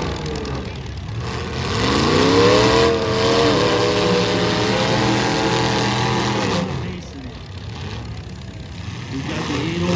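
Demolition derby car engine revving hard: it climbs in pitch about two seconds in, holds at high revs for several seconds, then drops back near the seven-second mark, with engines running underneath throughout.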